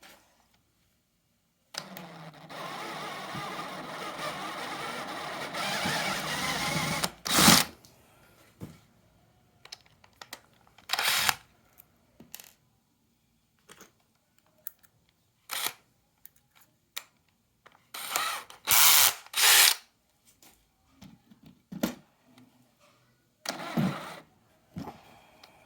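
Cordless drill motor running steadily for about five seconds, getting a little louder toward the end, then stopping with a sharp knock. After that come scattered clicks and knocks of handling.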